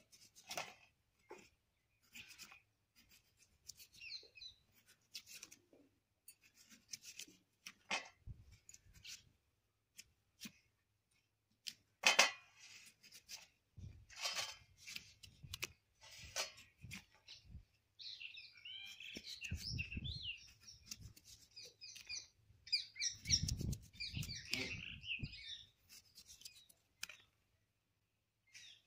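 Small knife paring the rind off a whole watermelon: a series of short, sharp slicing and scraping strokes, now and then a soft thud as the fruit or rind is handled. Birds chirp for several seconds in the second half.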